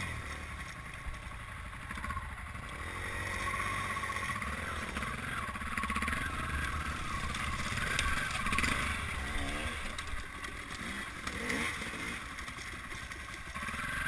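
Dirt bike engine revving up and down over and over as the bike is ridden over a rocky, log-strewn single-track trail.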